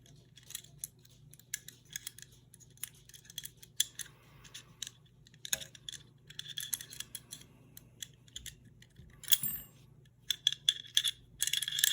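Small steel pistol parts clicking, tapping and scraping at irregular intervals as the trigger pin, trigger and trigger bar are worked out of a Sig Sauer P220 frame. The clicks grow busier and louder near the end.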